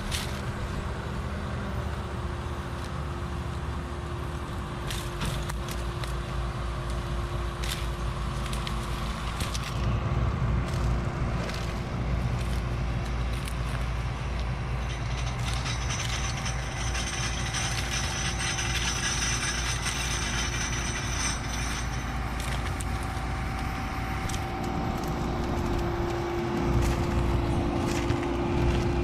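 Combine harvester and tractor diesel engines running steadily with a low drone that grows louder about ten seconds in; a high whine joins for several seconds around the middle.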